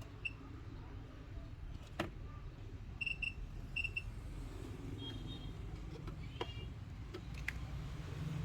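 Steady low background rumble with a few light clicks and two quick pairs of short high-pitched beeps about three to four seconds in.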